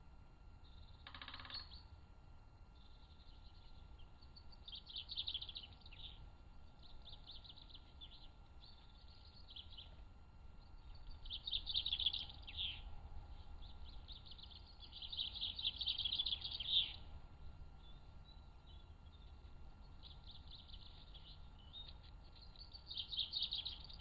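Woodland songbirds singing, with short trilled song phrases every second or two, heard through a trail camera's microphone over a low steady hum.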